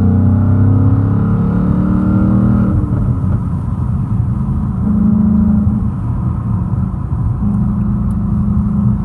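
A 2019 Mustang Bullitt's 5.0-litre V8 on its factory exhaust with the resonator cut out, heard from inside the cabin through a cracked window. The engine note rises under acceleration, drops off about three seconds in, then settles into a lower cruising note that swells twice.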